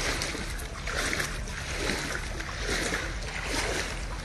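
Legs wading through knee-deep floodwater: a rhythmic sloshing swish with each step, about one every three-quarters of a second.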